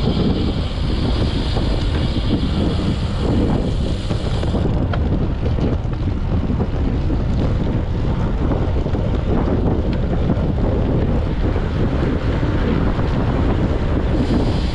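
Wind buffeting the microphone of a handlebar-mounted camera on a road bike riding at around 25–30 km/h. It is a steady, loud rush, heaviest in the low end, and the higher hiss thins about five seconds in.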